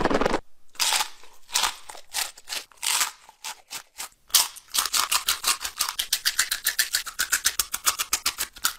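Close-up crunching of Takis rolled tortilla chips soaked in hot sauce: a brief rattle of the plastic container being shaken at the start, a few separate bites, then fast steady chewing crunches, about five a second, from roughly halfway through.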